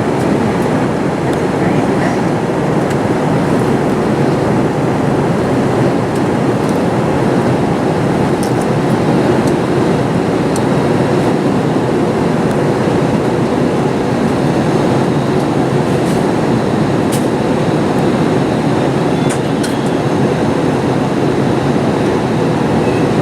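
Airbus A321 passenger cabin in flight: a steady rush of engine and airflow noise with a faint steady hum underneath.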